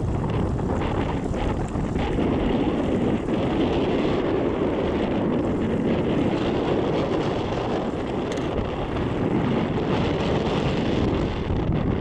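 Strong wind buffeting the microphone in a steady rush, over small wind-driven waves lapping in sandy shallows.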